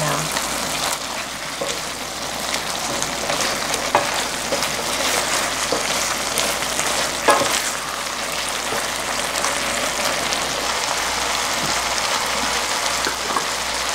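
Chicken and vegetables in a thick red chilli sauce sizzling and bubbling in a nonstick pan as two wooden spatulas turn them over. A few sharp knocks of wood on the pan cut through the steady sizzle.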